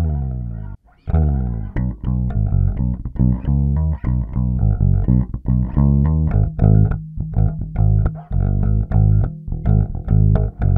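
Epiphone Thunderbird Classic electric bass with passive Gibson pickups, played with a neutral, flat tone setting. A note slides in pitch, stops briefly about a second in, then a fast run of plucked notes follows.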